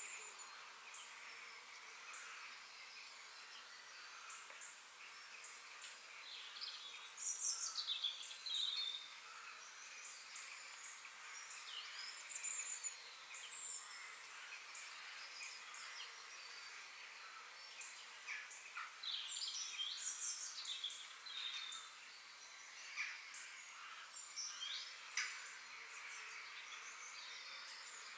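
Bird calls and chirps of several kinds, coming in short bursts of quick gliding notes, over a steady high background hiss. The loudest flurries of calls come about a quarter of the way in and again past the middle.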